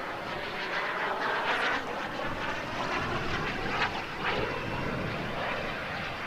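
B300F model gas turbine of a large-scale English Electric Lightning RC jet, running in flight as the model passes, a continuous jet rush that swells and fades in level.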